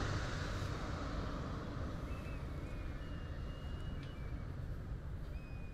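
Rumble of a distant engine fading away, over a steady low outdoor rumble, with a few brief faint high whistles about two seconds in and near the end.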